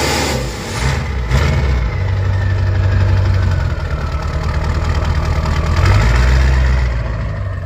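Old-body-style Ford pickup's 7.3-litre diesel V8 running at the exhaust tip, with a turbo whistle riding over the engine. The pitch falls as the revs drop about a second in, then the engine revs up again a little before the end.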